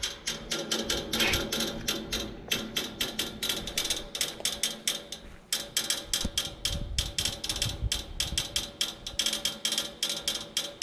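Air-conditioner condenser unit clicking rapidly and steadily, about six clicks a second, while its fan is not running. The clicking comes from the unit, not the fan, and a new fan motor did not cure it. It stops near the end.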